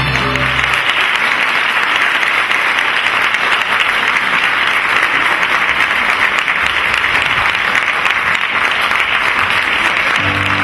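Audience applauding steadily, a dense even clapping; the last low notes of the music die away about a second in.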